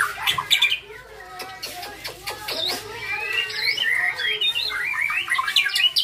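Young white-rumped shama (murai batu) singing a continuous, varied song: a rapid run of whistled slurs rising and falling in pitch, mixed with short clicking notes.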